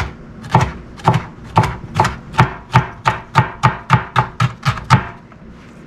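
Chef's knife chopping red bell pepper strips on a white plastic cutting board: about fifteen sharp knocks that quicken as they go, then stop about a second before the end.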